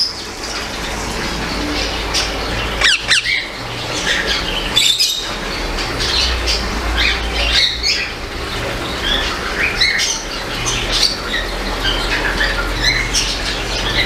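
Rose-ringed (Indian ringneck) parakeet squawking in short calls over and over, with one sweeping call about three seconds in, over a steady low hum.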